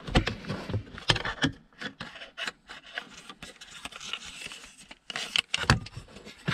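Hard plastic scraping, rubbing and clicking as an aftermarket BMW E39 cup holder unit is worked against the dash opening, with sharp knocks scattered through and a cluster near the end. The replacement part is a tight fit that does not slide in properly.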